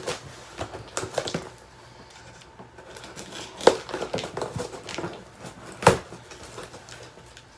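Cardboard shipping box being opened by hand: a blade cutting through the packing tape and the flaps pulled apart, with cardboard scraping and rustling and two sharp knocks, the louder one near the end.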